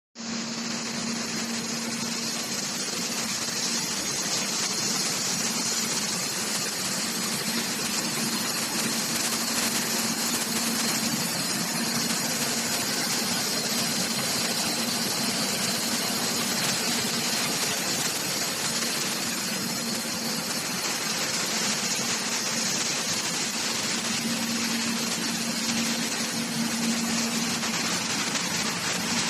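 Automated plasma and TIG welding of a cylinder's circular seam: a steady, even arc hiss with a constant hum underneath, running without a break.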